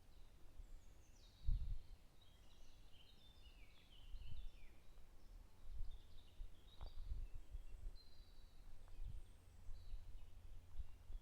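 Several songbirds singing in a forest, a quick run of falling, chirping phrases in the first few seconds, then scattered calls. Under them is a fluctuating low rumble with a thump about a second and a half in.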